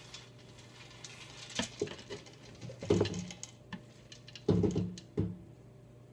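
Toasted pine nuts sliding off a baking sheet and pattering into a plastic food processor bowl, with a few sharp knocks, the loudest about three and four and a half seconds in.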